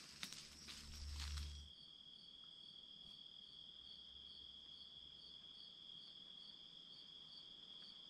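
Crickets trilling quietly: one steady, unbroken high trill and a second, evenly pulsing trill above it. Over about the first second and a half there are a few footsteps on the rocky trail.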